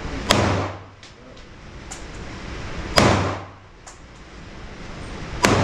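Three gunshots at a slow, even pace, about two and a half seconds apart, each ringing off briefly in the enclosed range. Fainter sharp cracks fall between them.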